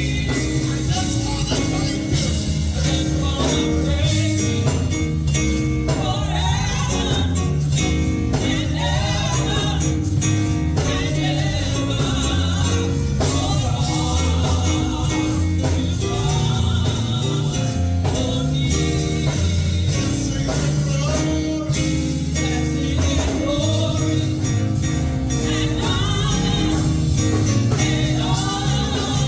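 Gospel song: singing over band accompaniment with a steady bass line and beat.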